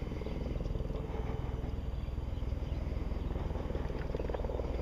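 A small engine running steadily with a low, even hum.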